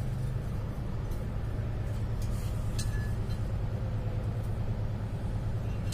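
Steady low mechanical hum, with a few faint light metallic clicks about halfway through as a piston ring is pushed down inside a cylinder liner to check its end gap.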